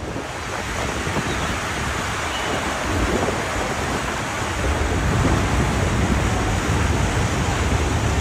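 Wind rumbling on the microphone over the rush of water churned up in a ferry's wake. The noise grows louder early on, and the low rumble gets heavier about halfway through.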